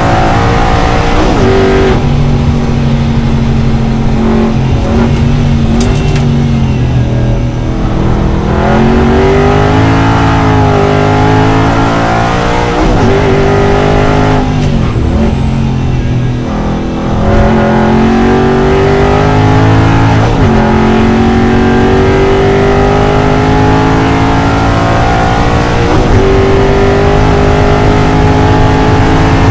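Aston Martin V8 Vantage GT4 race car's V8 engine heard from inside the cockpit, pulling hard through the gears. The pitch climbs and drops back at each upshift, with a brief lift off the throttle about halfway through.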